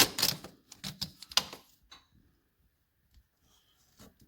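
A quick clatter of clicks and knocks for about two seconds, as things are handled, then quiet except for a couple of faint clicks near the end.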